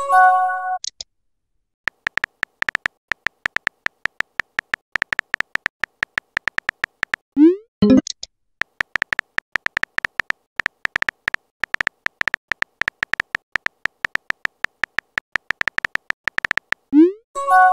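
Texting-app sound effects: two long runs of rapid clicks from a simulated phone keyboard typing, broken up by short rising blips and brief chimes of several tones as message bubbles appear. One chime rings at the start, a blip and a second message sound come about halfway through, and another blip and chime come near the end.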